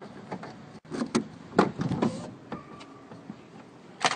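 A run of sharp clicks and knocks at a car door, the loudest about one and a half seconds in, as a locksmith works the locked car open.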